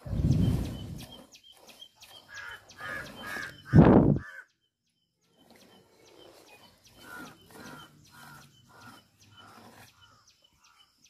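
Cow being milked by hand into a steel pail: short squirts of milk hitting the pail, about two a second. Two louder bumps come at the start and about four seconds in.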